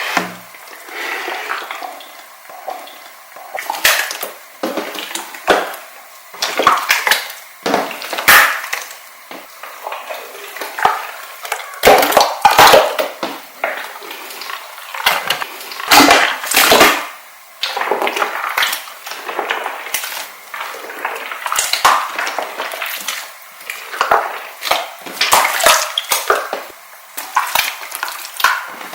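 A large mango pudding slime being squished and pressed by hand, giving irregular bursts of sticky popping and crackling, loudest about twelve and sixteen seconds in.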